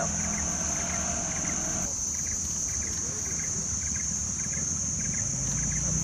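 Outdoor ambience: a steady high insect drone with a short chirp repeating about twice a second, over a low rumble.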